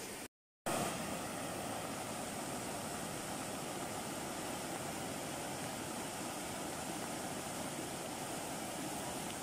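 Floodwater rushing and churning over rocks and concrete culvert pipes: a steady rushing noise that begins after a split second of silence near the start.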